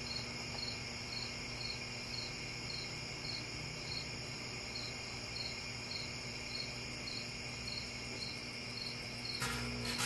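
Microwave oven running with a steady low hum, under a cricket chirping evenly about two and a half times a second. Shortly before the end comes a brief crackling buzz: aluminum foil arcing inside the oven.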